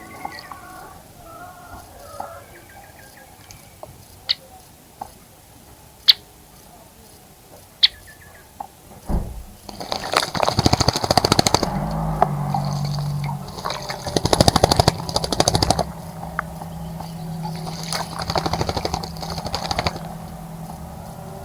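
A bird bathing in a bird bath, splashing and fluttering its wings in the water in three quick bursts over the second half. Before that there are scattered bird calls and a few sharp chips. A steady low engine-like hum comes in behind the splashing.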